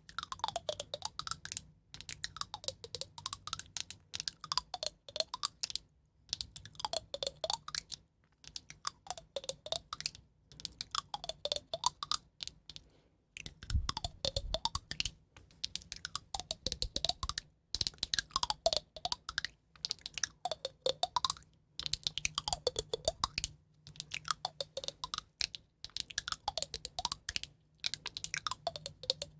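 Rapid, light tapping clicks in repeating bursts about every two seconds, each burst carrying a ringing tone that dips and then rises in pitch.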